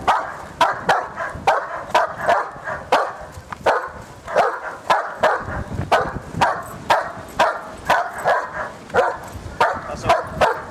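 A dog barking over and over in short, sharp yips, about two to three a second, without a break.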